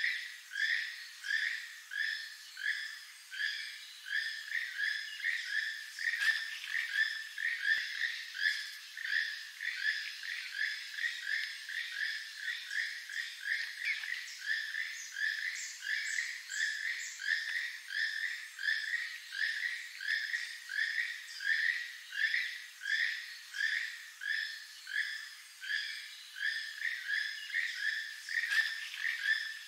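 Keel-billed toucan calling: a frog-like croak repeated steadily, about two croaks a second.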